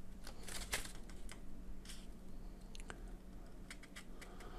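Pages of a small paper instruction booklet being leafed through by hand: soft, scattered paper flicks and rustles.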